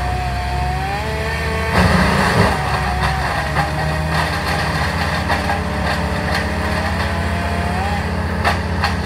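Petrol engines running: a steady low drone under a higher engine note that wavers slowly up and down in pitch, with a few sharp clicks near the end.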